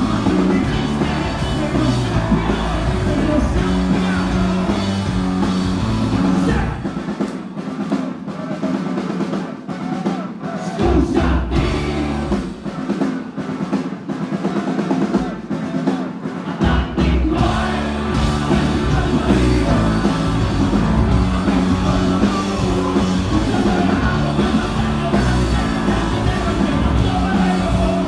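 Rock band playing live: electric guitars, bass guitar and drum kit. About seven seconds in, the bass and drums drop out for a thinner, quieter passage, and the full band comes back in at about seventeen seconds.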